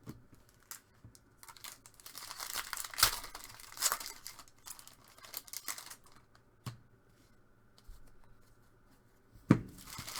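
Foil trading-card pack wrappers being torn open and crinkled by hand, in spells of crackly tearing, with a sharp knock near the end.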